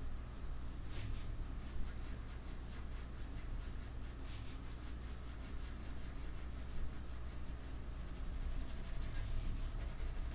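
A pen scratching on paper in short drawing strokes, with a fast run of quick strokes near the end.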